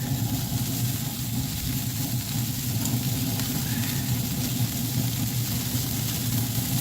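Steady low hum of a running pellet smoker's fan, with chicken wings sizzling on the grill.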